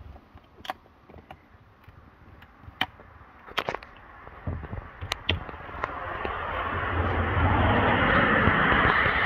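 Light clicks and knocks of plastic motor-oil jugs being handled, then from about six seconds a rushing noise that builds and holds steady, louder than the clicks.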